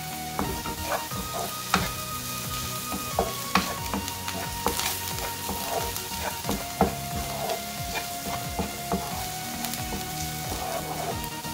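Diced vegetables sizzling in a non-stick frying pan as a wooden spatula stirs them, with irregular scrapes and taps of the spatula against the pan over a steady frying hiss.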